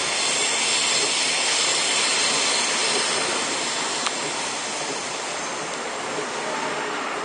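Irish Rail 29000 Class diesel multiple unit passing close by: a steady rush of engine and wheel noise that swells and then slowly eases as the train moves away. A single sharp click about four seconds in.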